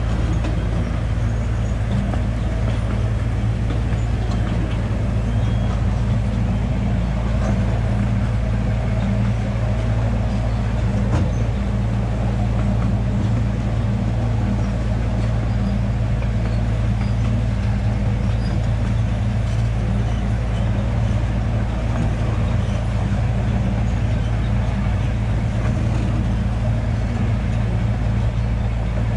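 Miniature zoo train's engine running with a steady low drone as the train moves along, heard from an open passenger car behind it.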